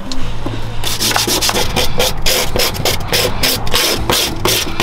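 Sandpaper rubbed by hand on the painted steel inner fender of a 2002 GMC truck's engine bay, in quick back-and-forth strokes about three or four a second, starting about a second in. The strokes scuff the old paint so Bondo body filler will grip.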